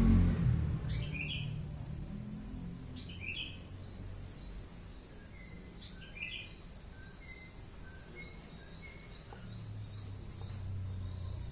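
Birds chirping: three sharper falling calls about one, three and six seconds in, then a run of short repeated notes. A low rumble fades in the first second or two and returns near the end.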